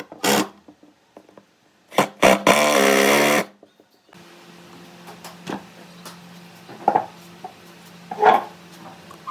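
A small electric motor runs in two short bursts. Then a steady low hum follows, with scattered light taps and clicks.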